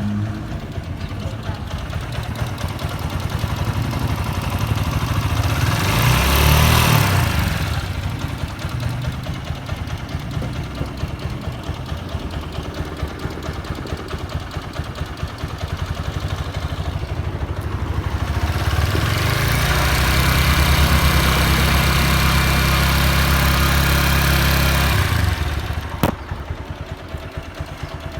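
TVS Apache RTR 160 4V single-cylinder motorcycle engine idling, revved briefly about six seconds in and then held at higher revs for about six seconds before dropping back to idle, with a sharp click just after. The engine makes an abnormal noise whose cause the owner cannot trace.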